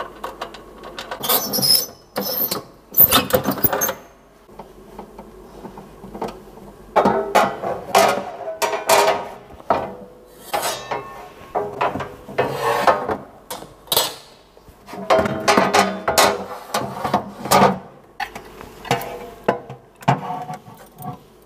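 Parts being lifted out of and set into a desktop laser cutter's enclosure by hand: irregular clicks, knocks and clattering in several spells with short pauses between them.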